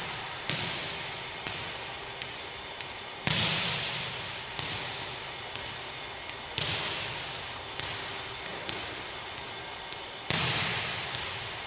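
Volleyballs being hit and bouncing on a hardwood gym floor: about five loud smacks, each ringing on for about a second in the echoing hall, with smaller, fading bounces between them. A short, high squeak comes about two thirds of the way through.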